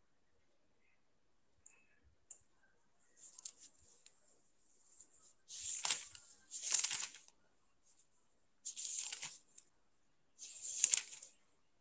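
Several short bursts of rustling noise close to the microphone, about one a second or two, each lasting under a second, with a few faint clicks before them.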